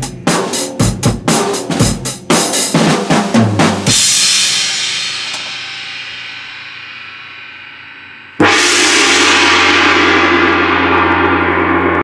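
Drum kit played in quick fills with cymbal crashes for about four seconds, then a crash ringing down. A little past eight seconds a struck gong comes in suddenly and loudly and rings on with a steady low hum until it stops abruptly.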